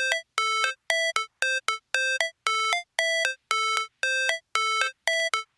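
Background music intro: a synthesizer playing short, clipped notes in a simple repeating pattern, with brief silences between them.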